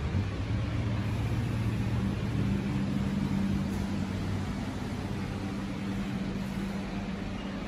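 2018 Ford F-150 Raptor's 3.5-litre twin-turbo V6 idling with a steady low drone.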